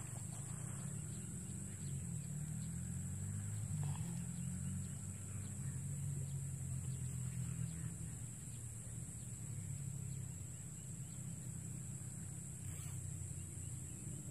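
Steady high-pitched drone of insects, over a low steady hum that shifts slightly in pitch.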